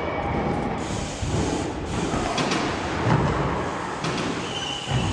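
BMX tyres rolling over skatepark ramps and floor, a steady rumbling noise.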